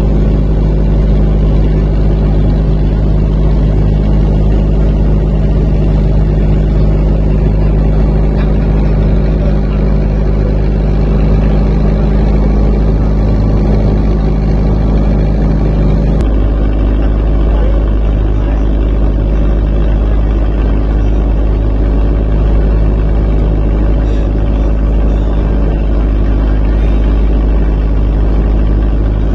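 A motorboat's engine running steadily with a deep drone, over the rush of water along the hull. The engine note shifts slightly about halfway through.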